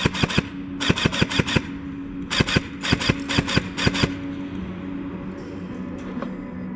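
Airsoft gun firing rapid full-auto bursts: the end of one burst, then two more, in the first four seconds.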